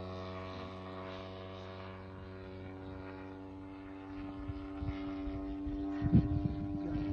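3W-157 two-stroke petrol engine of a large RC model airplane running at a steady speed, with an even, unchanging pitch. From about four and a half seconds an irregular low rumbling with knocks joins it, and one sharp bump about six seconds in.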